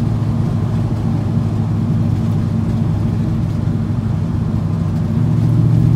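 1978 Chevy C10 pickup cruising at a steady speed, heard from inside the cab: a steady low exhaust drone through Flowmaster Hush Power HP2 mufflers, which are pretty loud. The drone swells a little near the end.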